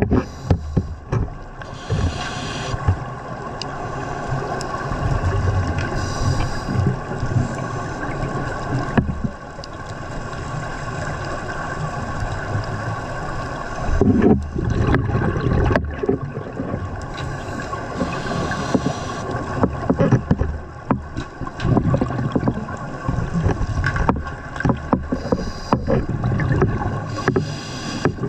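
Scuba diver breathing through a regulator underwater: exhaled bubbles rumbling and gurgling, with a hiss of inhalation every several seconds. A steady hum runs underneath.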